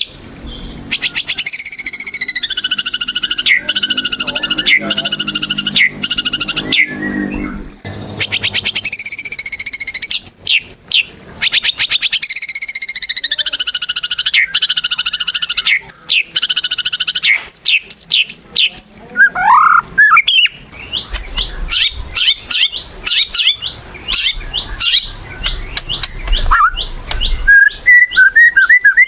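White-rumped shama (murai batu) singing continuously at full voice: long, fast rattling trills broken by sharp falling notes, then quick runs of short clipped notes with rising whistles in the second half.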